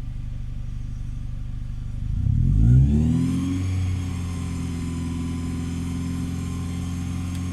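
Toyota 3S-FE four-cylinder engine idling, then revved up about two seconds in and held at a raised speed. A high squeal comes in as the revs rise and keeps on. This is the noise that appears only when the engine is accelerated, on an engine that also has an overheating problem.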